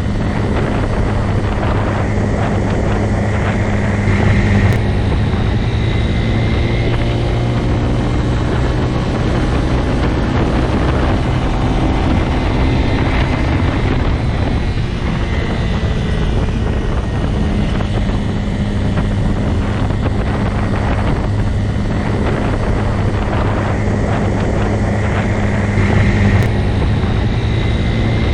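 Motorcycle engine running at a steady speed, with two brief louder swells, about four seconds in and again near the end.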